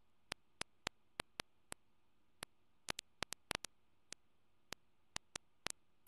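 Irregular sharp clicks, about three a second and bunched together around the middle, over an otherwise near-silent background.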